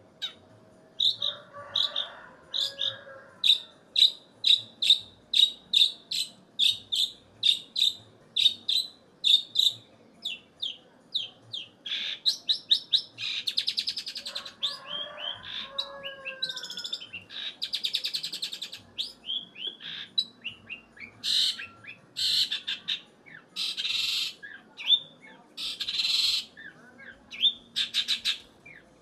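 Long-tailed shrike (cendet) singing: a long series of sharp, high chirps about two a second, then faster rattling phrases mixed with harsh, buzzy notes in the second half.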